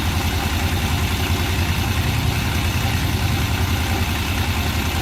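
Suzuki Bolan's three-cylinder engine idling steadily, with an even low pulse.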